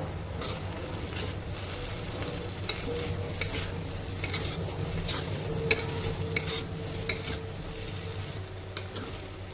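Veg chowmein being stirred in a hot pan: a spatula clicks and scrapes against the pan many times at an irregular pace over a low sizzle.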